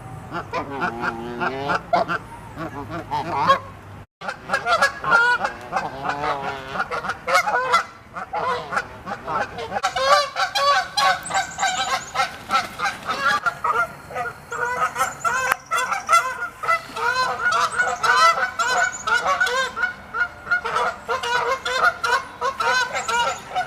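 A flock of geese honking: many short, overlapping calls, with the sound cutting out briefly about four seconds in and the calling growing denser afterwards.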